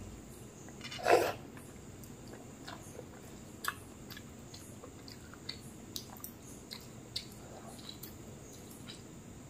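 Eating rice and dal by hand: fingers working the rice on the plate, then chewing, with one louder smack about a second in and scattered soft mouth clicks after it.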